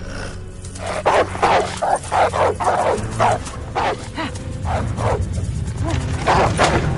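Dogs barking rapidly and repeatedly, starting about a second in, roughly two to three barks a second.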